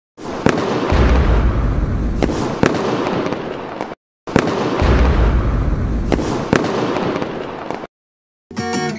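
Fireworks sound effect: a dense crackling noise with a few sharp cracks over a deep low rumble, played twice, each about four seconds long and ending abruptly. Guitar music starts near the end.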